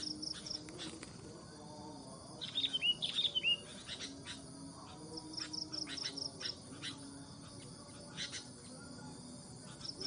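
Sooty-headed bulbul calls: a quick burst of short, downward-curling whistled notes about two and a half seconds in, the loudest sound. A high, rapidly pulsing trill comes and goes around it.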